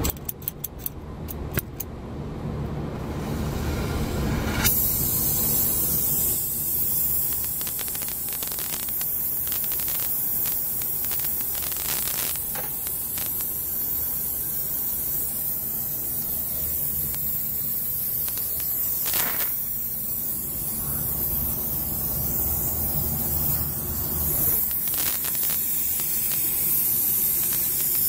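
A few sharp clicks, then about four and a half seconds in a brazing torch lights and runs with a steady hissing flame. It is being used to seal a refrigerant leak on a copper condenser coil.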